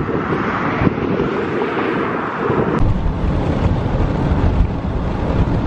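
Steady road and wind noise from a car driving on a highway, changing abruptly about a second in and again near three seconds in.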